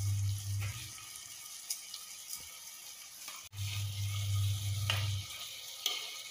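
Spoon stirring thick lemon pickle in a clay pot on the stove, with light sizzling and small scrapes and clicks. A low steady hum runs for the first second and comes back for a couple of seconds past the middle.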